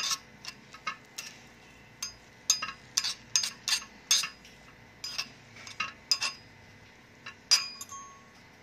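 A small metal spoon stirring chopped onion and garlic in a miniature metal wok-style pan, clinking against the pan's sides in irregular, sharp, briefly ringing taps.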